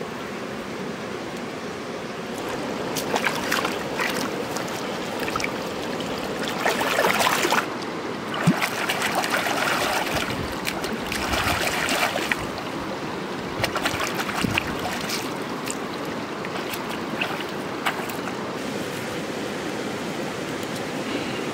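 Shallow river flowing steadily, with repeated splashing as leafy greens are swished and rinsed in the water by hand, in several bursts through the middle.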